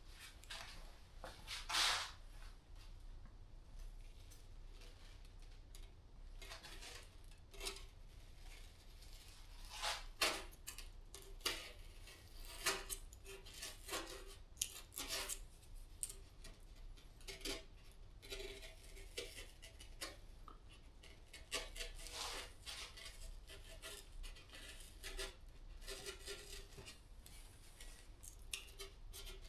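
Intermittent cutting and scraping strokes of a knife carving into a foam deer form around the eye orbit, faint, in short irregular bursts with a few sharper ticks.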